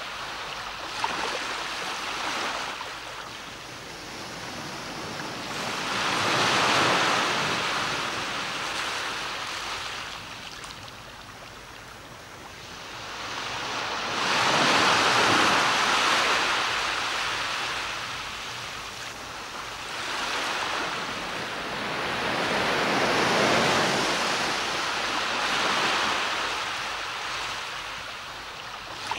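Sea waves breaking on a beach: a steady rush of surf that swells and falls back, with three big swells about eight seconds apart.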